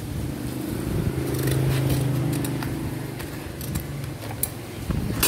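A low engine hum swells over about two seconds and fades away, with scattered light clicks and a sharp click near the end.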